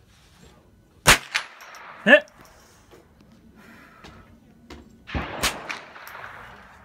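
.22 LR rifle shots: one sharp crack about a second in, then two more a quarter-second apart a little past the five-second mark, each with a short ringing tail. A short, loud rising squeak comes around two seconds in.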